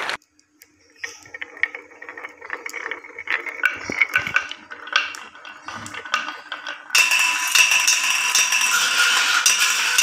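Glass marbles rolling and clattering down a wooden zigzag marble-run track, a quick irregular run of clicks and knocks as they hit the curved walls. About seven seconds in, a louder steady rushing sound with some held tones takes over.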